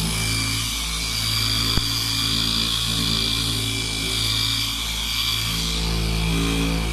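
Electric car polisher running steadily with a foam pad pressed against a car headlight, a continuous motor whine with a low hum. A light click about two seconds in.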